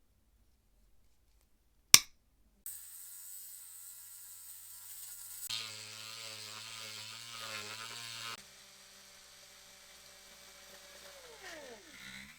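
A sharp click, then a small electric motor running steadily with a whir and hiss; near the end its pitch falls as it winds down.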